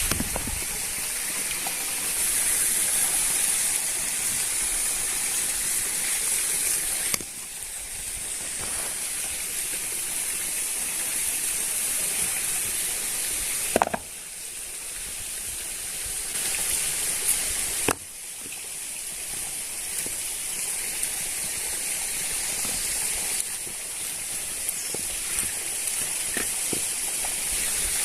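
A steady hiss of water with a high, even drone on top. The level drops suddenly three times, about 7, 14 and 18 seconds in, each drop marked by a click.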